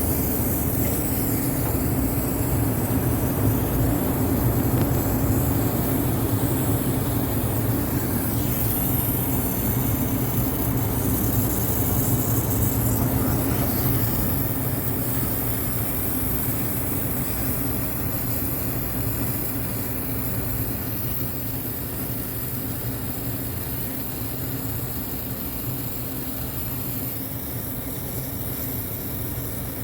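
Steady low mechanical hum of rooftop air-conditioning machinery running, with a constant drone and no breaks.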